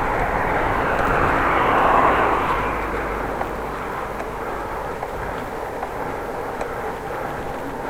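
Outdoor traffic noise heard from a moving bicycle, with a vehicle passing that swells to its loudest about two seconds in and then fades into steady road and wind noise.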